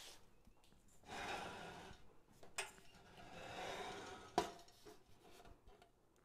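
Soft rustling of wired ribbon and artificial greenery as a lantern topper arrangement is handled and turned, with a light click and then a sharp knock about four seconds in.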